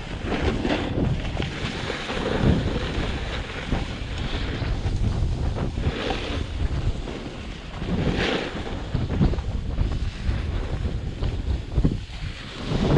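Wind buffeting the microphone of a body-mounted action camera, with a snowboard scraping and hissing over packed, tracked snow at speed. The rush swells every few seconds.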